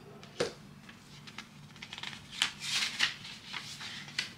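Paper being handled: rustling with a few sharp crackles, the loudest about half a second in and a cluster a little past halfway, as a paper card is taken out and opened.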